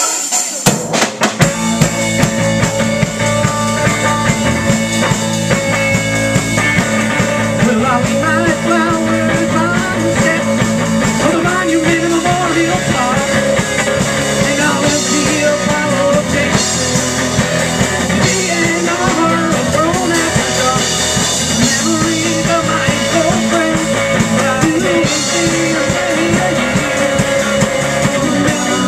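Live rock band playing electric guitars and a drum kit through amplifiers, starting abruptly with drum hits about half a second in. Singing comes in after several seconds.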